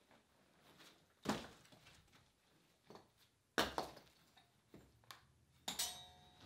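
Loose rocks knocking together as broken stone is handled on a rubble pile: a handful of sharp, irregular clacks, the loudest about a second in and another at about three and a half seconds, with a short rattling clatter of stones near the end.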